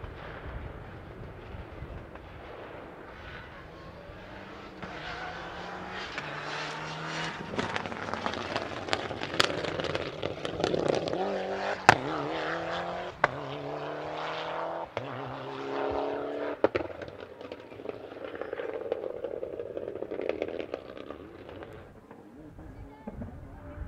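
Rally car at full throttle approaching and passing, its engine revving up and dropping with each gear change, loudest about halfway through. There are a few sharp cracks near the loudest part, and the engine fades away near the end.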